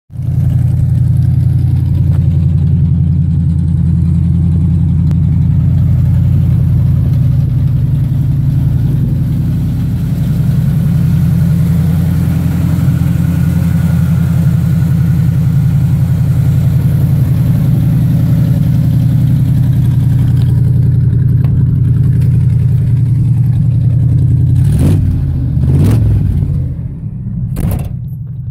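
Cammed 350 small-block V8 in a 1981 Chevy Caprice idling through headers and straight pipes with no mufflers or catalytic converters, steady and loud. Near the end the idle briefly rises and falls in pitch a couple of times before dipping.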